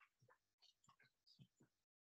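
Near silence, with faint scattered ticks and rustles.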